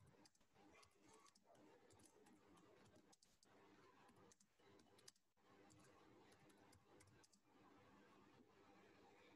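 Faint computer keyboard typing: irregular key clicks over near silence.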